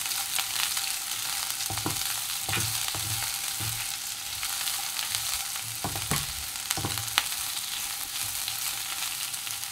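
Carrot, capsicum and bean strips sizzling in hot oil in a non-stick kadai while a spatula stirs them, with a soft knock or scrape of the spatula against the pan every second or so. The vegetables are being lightly fried.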